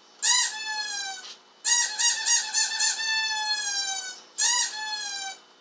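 Squeaky dog toy squeaking, played back from a video through a small speaker. A long squeak that falls in pitch, a quick run of about five squeaks trailing into a long falling squeal, then one more squeak near the end.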